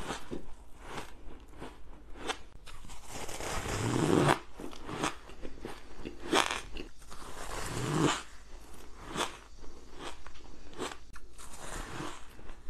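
Bites and chewing of lumps of packed shaved ice: crisp, irregular crunches, the loudest about four, six and eight seconds in.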